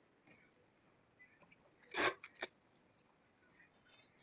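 Scattered small clicks and clatter of parts and tools being handled on a repair bench, with one louder knock about two seconds in.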